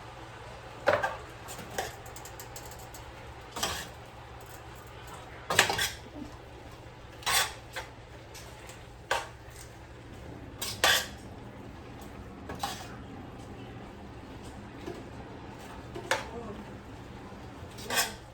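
Dishes, pots and utensils clattering in a kitchen during food preparation: about ten separate sharp clinks and knocks at irregular intervals, over a steady low hum.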